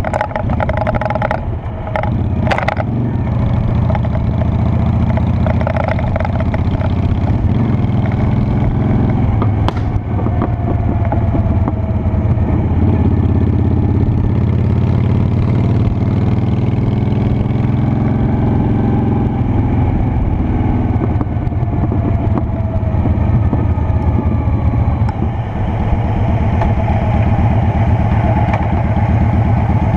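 Honda Shadow Spirit 750's V-twin engine running while the bike is ridden, its pitch slowly rising and falling several times with throttle and speed.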